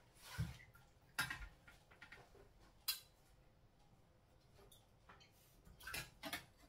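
A few scattered clinks and knocks of cutlery against a glass bowl and plate, the sharpest about a second in and about three seconds in, then two more close together near the end, with quiet between.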